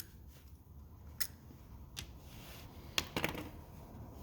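A few sharp, separate clicks and taps from handling a spinning reel and prying at its side plate, which is stuck and not yet coming free.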